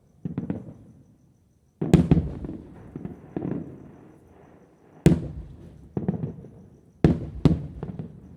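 Fireworks going off: a run of separate sharp bangs, each trailing off in a rolling echo. The loudest come about two, five and seven seconds in.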